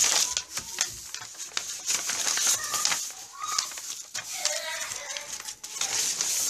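Poster board being handled and smoothed flat by hand over a spiral notebook: paper rustling and sliding, with scattered crisp crackles. A few short pitched calls sound faintly in the background.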